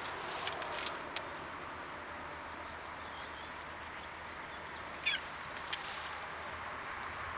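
A cat giving one short, high mew that falls in pitch about five seconds in, over steady outdoor background hiss with a few soft clicks near the start.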